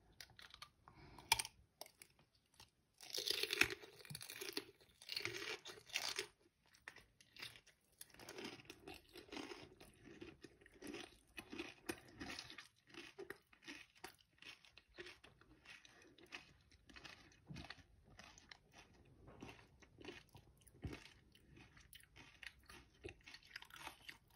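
Close-up biting and chewing of a raw green pepper stuffed with labneh and cheese-flavoured Doritos chips: loud crunching in the first few seconds, then quieter steady chewing.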